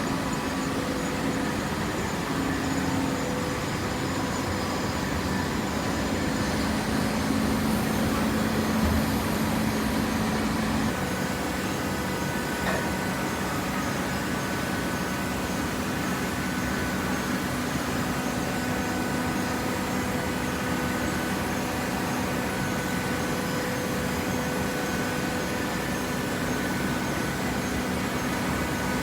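Hydraulic paper baler running: a steady machine hum from its motor and hydraulic pump, with a change in its hum about eleven seconds in.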